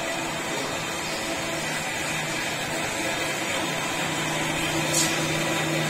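Belt-driven metal lathe running steadily: a continuous motor-and-belt hum with a few steady tones. A brief click about five seconds in.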